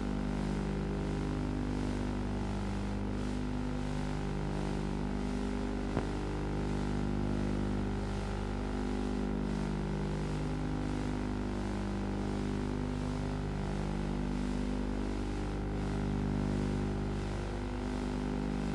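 A steady low drone of held tones that step between a few fixed pitches every two to three seconds, over a constant low hum. There is one sharp click about six seconds in.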